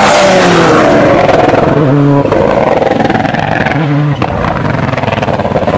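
Rally car engine at high revs driving hard through a stage, loud and close; the engine note breaks and changes sharply about two seconds in and again about four seconds in.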